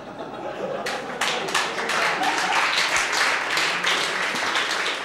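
Studio audience laughing, then breaking into applause about a second in; the clapping builds to a full round and carries on.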